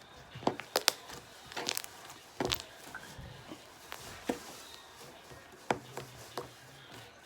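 Slime being squeezed and stretched by hand: irregular sticky clicks and pops, about a dozen, unevenly spaced.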